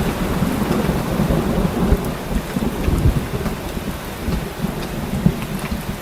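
Heavy rain falling steadily, with a continuous low rumble of rolling thunder underneath.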